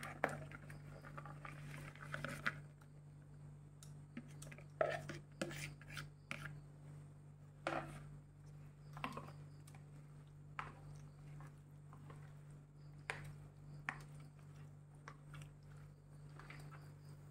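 Diced raw mango tumbling into a plastic mixing bowl of wet chili-spice paste for the first couple of seconds, then a steel spoon stirring it, knocking and scraping against the plastic bowl in irregular clicks, with soft wet mixing sounds. A steady low hum runs underneath.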